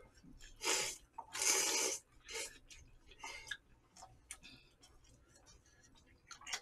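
Jjamppong noodles being slurped from the bowl in two long, loud slurps about a second in, followed by quieter slurping, chewing and small clicks.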